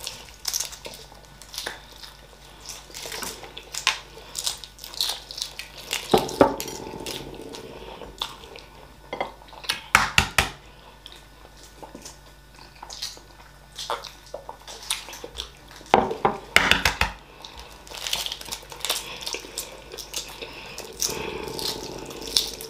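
Hard-boiled eggs being cracked and peeled by hand: irregular crackling and small clicks of eggshell, with chewing.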